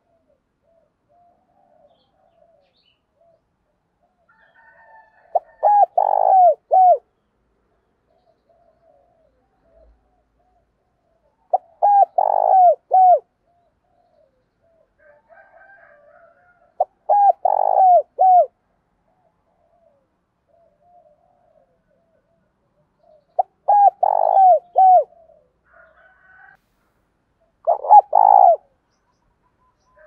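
Spotted dove cooing: five loud phrases of three or four coo notes each, repeated about every five to six seconds.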